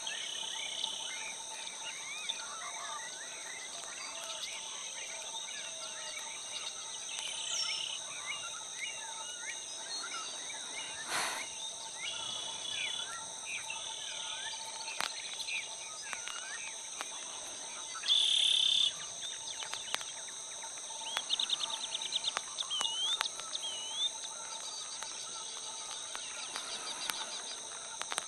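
Steady high insect drone with many small birds chirping and whistling over it. A louder, brief call comes about two-thirds of the way through, followed by a run of quick repeated notes and rising-falling whistles.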